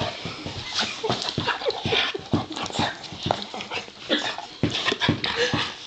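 Excited pit bull making a rapid string of short, irregular vocal noises while squirming against a person at close range.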